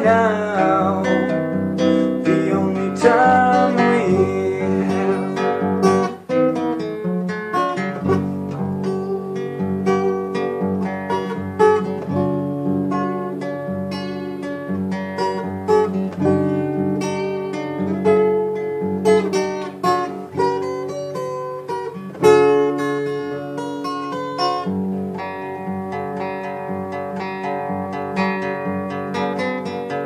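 Steel-string acoustic guitar played solo, an instrumental passage of picked notes and chords. The sound drops out briefly about six seconds in, and a hard strum stands out about twenty-two seconds in.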